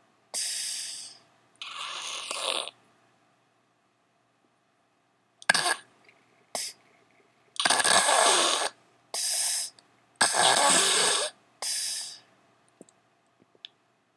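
Loud snoring: noisy breaths about a second long, mostly in pairs, with a pause of nearly three seconds after the first pair and a few short snorts around the middle.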